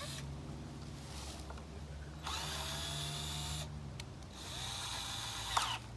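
Power drill driving the fastenings that hold a 2x2 guide board to an oak log, in two runs of a bit over a second each, starting about two seconds in.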